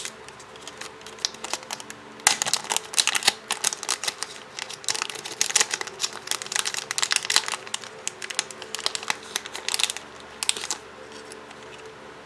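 Plastic packaging crinkling and clicking as a replacement phone charging port is taken out of it: a dense run of small, sharp ticks that starts about two seconds in and stops about a second before the end.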